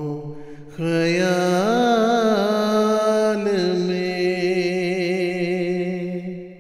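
A single male voice melodiously reciting an Urdu poem (nazm) in long, wavering held notes. One phrase fades out, a new one rises in about a second in, and it fades away again near the end.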